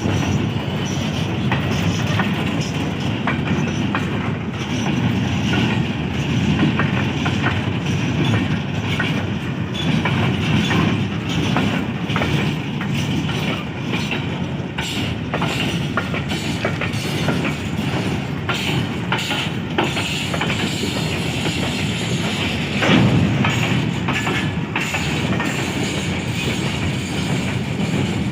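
Goods train rolling past: a steady rumble with the wagons' wheels clicking over the rail joints, briefly louder about four-fifths of the way through.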